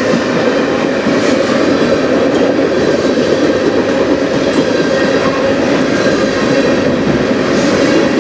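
A freight train of steel tank cars rolling past on the near track: a steady, loud rumble and rattle of wheels on the rails.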